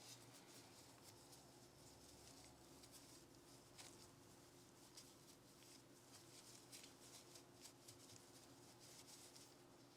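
Very faint light ticks and scratchy rubbing from small pistol parts being handled and cleaned, scattered irregularly over a low steady hum.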